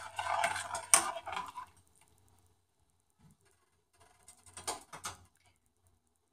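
A steel spoon stirring dal in a stainless steel pressure cooker pot, scraping and clinking against the metal, with a sharp clink about a second in. The stirring stops, then a few more clinks come about four to five seconds in.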